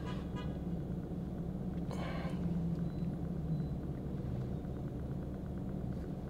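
Steady low rumble of a car, heard from inside the cabin, with a faint short sound near the start and a brief rustle about two seconds in.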